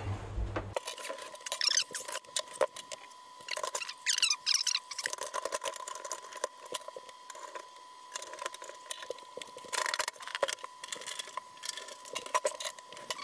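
A PC tower case being handled and its side panel worked off: scattered clicks and knocks with several short high squeaks, over a faint steady tone.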